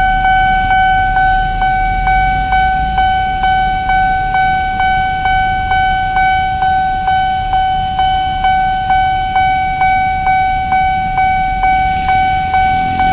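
Railway level crossing warning bell ringing steadily, about two strikes a second, each strike a single clear tone with overtones that rings on into the next. It signals that the barrier is down and a train is approaching.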